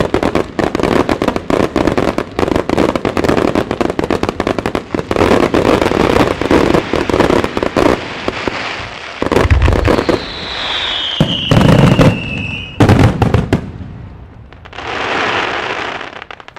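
A starmine fireworks barrage fired at close range. A dense run of rapid cracks and bangs lasts about eight seconds, followed by a few heavy booms with a falling whistle among them. It dies away near the end after a short rush of noise.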